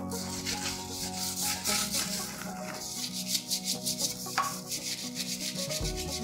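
Toilet brush scrubbing the inside of a foam-covered porcelain toilet bowl in quick, even strokes, with background music underneath.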